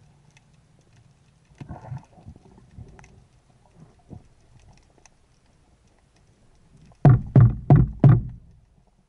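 Underwater noise picked up by a spearfisher's camera while diving: scattered faint clicks and knocks, then four loud thumps in quick succession about seven seconds in.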